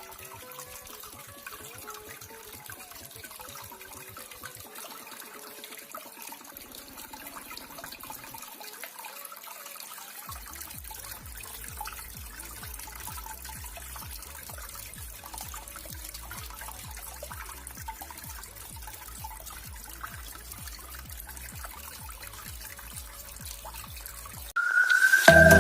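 Water trickling steadily down a small cement tabletop waterfall. Electronic music comes in suddenly about a second before the end.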